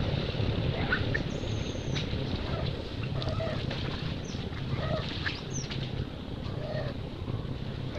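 Scattered short animal calls, some high thin whistles and chirps and some short lower clucking notes every second or two, over a steady low rumble.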